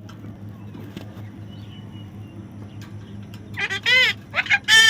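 Low steady hum, then from about three and a half seconds in a parrot calls loudly: two or three short squawks that rise and fall in pitch.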